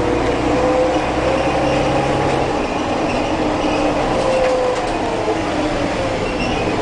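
Mercedes-Benz O-500UA articulated bus's OM-457 LA diesel engine running under way, its pitch rising and falling gently. A steady low hum drops away about two and a half seconds in.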